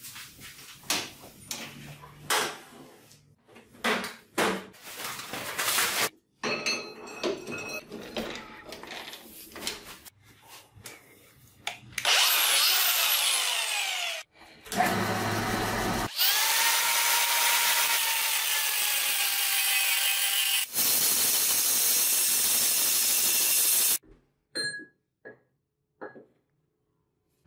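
Workshop tool sounds in quick succession. First come scattered clicks and knocks of handling, then power tools run loudly for several seconds, one with a pitch that falls as it spins down. A few faint ticks follow near the end.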